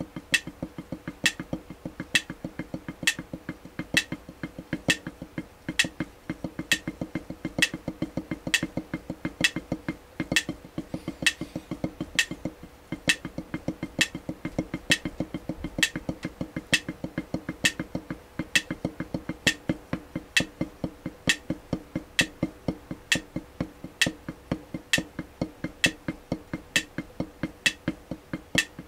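A drumstick playing fast, even strokes on a drum practice pad, with louder, sharper strokes recurring at a steady beat.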